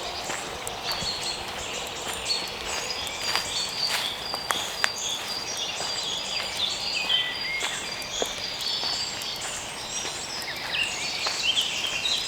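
Several songbirds singing at once, many short high notes overlapping without a break. Footsteps crunch on dry leaf litter and twigs as brief clicks among the song.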